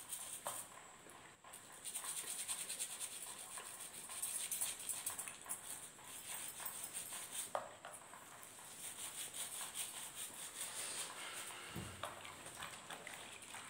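Faint, quick scratchy strokes of a brush scrubbing feet and toenails.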